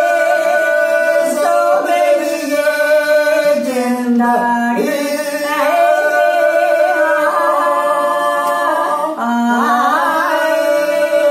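Unaccompanied Dogri bhakh folk singing by a woman and a man, hands cupped to their ears. Long drawn-out notes bend slowly in pitch, broken only by short breaths about four and nine seconds in.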